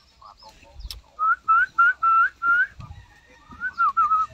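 A person whistling: five short notes that each rise in pitch, then a wavering phrase near the end.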